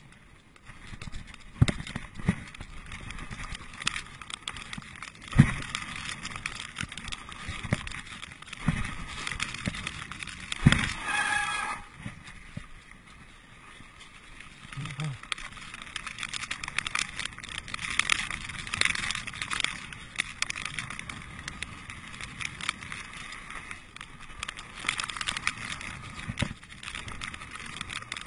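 Mountain bike rolling fast down a wet dirt trail: steady tyre noise with frequent knocks and rattles as the bike hits bumps, and a brief high squeal near the middle.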